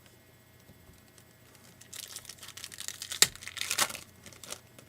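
Foil wrapper of a trading-card pack crinkling as it is torn open, with a sharp snap of the wrapper a little past the middle.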